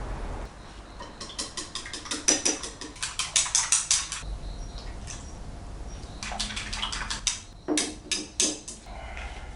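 Small utensils clicking and tapping against dishes in quick runs of several clicks a second, with a few louder knocks near the end.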